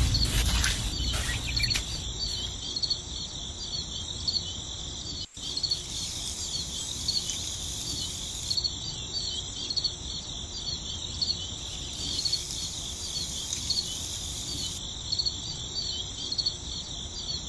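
Steady chirping of crickets, with a rough scraping of sand in the first two seconds and a brief dropout about five seconds in.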